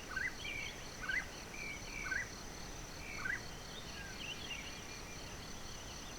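Crickets or other insects trilling steadily in two high tones, one of them pulsing. Over it come short rising chirps about once a second, which stop after about three and a half seconds.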